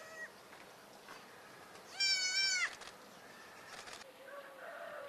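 A goat kid bleating: one loud, wavering high call about two seconds in that lasts under a second. There is a short faint bleat at the start and a lower, drawn-out bleat near the end.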